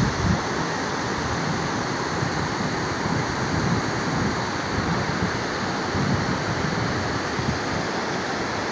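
Muddy floodwater rushing steadily across open ground, with wind buffeting the microphone now and then.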